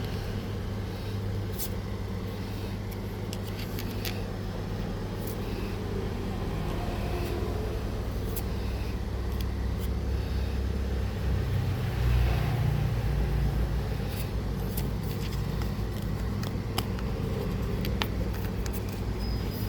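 Steady low rumble of a car on the move, loudest about twelve seconds in, with scattered light clicks and rustles over it.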